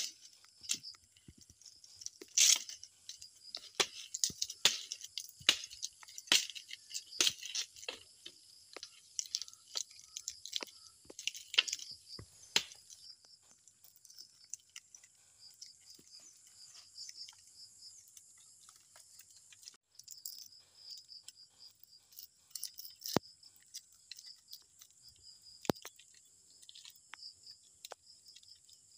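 Green leaf strips crackling and tearing as they are pulled tight and knotted around wooden poles: a dense run of sharp crackles for about the first dozen seconds, then only scattered ones. Insects, likely crickets, trill steadily behind.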